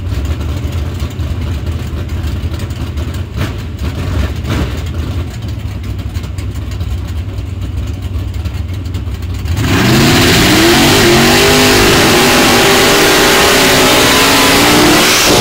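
Drag cars idling with a low rumble, then about ten seconds in launching at full throttle: the engines jump to full loudness and rise sharply in pitch as they pull away.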